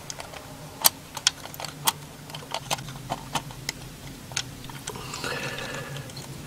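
Small metal parts of a Renault 4 GTL's Ducellier distributor clicking and ticking irregularly as fingers fit the vacuum advance unit's toothed gear into place. From about five seconds in, a steady scraping rub of metal on metal.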